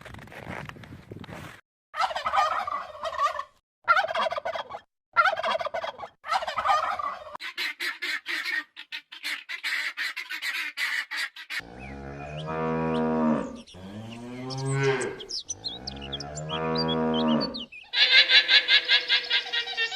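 A run of farm animal calls. First come four short poultry calls and a stretch of rapid clucking. Then a cow moos three long times, and a quavering bleat starts near the end.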